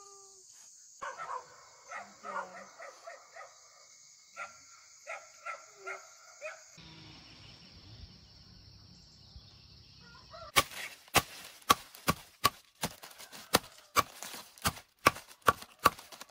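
Steady high chirring of insects with a run of short animal calls over it; after a sudden change of background, a series of sharp knocks, about two a second, begins near the end.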